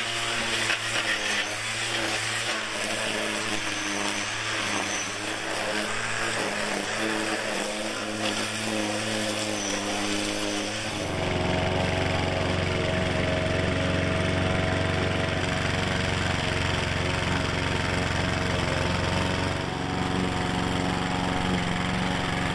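A small engine-powered tool running steadily. About eleven seconds in it gives way abruptly to a walk-behind rotary lawn mower, whose engine runs with a steady, deeper hum while mowing grass.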